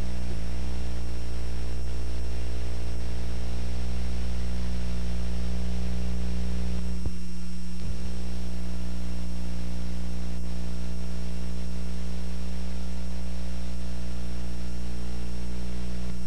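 Steady electrical mains hum with a buzzy row of overtones on an old videotape's soundtrack, wavering slightly at first and then holding even. A couple of faint clicks come about seven seconds in.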